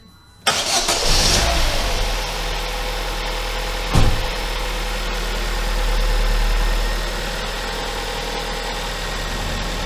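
Freshly rebuilt Opel Zafira 1.6 petrol four-cylinder engine starting for the first time after its overhaul: it fires about half a second in, surges briefly, then settles into a steady idle. A single sharp click sounds about four seconds in.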